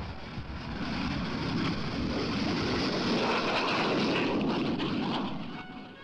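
Jindivik target drone's jet engine during its take-off run: a rushing jet noise that swells to its loudest about three to four seconds in and fades away near the end.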